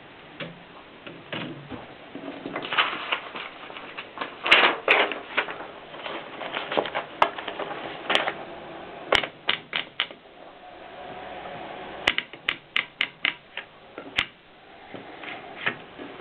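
Mignon 4 index typewriter printing: irregular sharp clacks with some mechanical rattling, and a quick run of about ten clicks about three-quarters of the way through.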